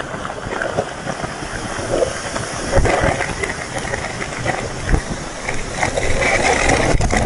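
Aftermath of a large Tannerite blast at close range: mud clods and debris rain down around the camera with a continuous rushing hiss, many small pattering hits and a couple of heavier thuds. It grows louder near the end as the dust cloud sweeps over the microphone.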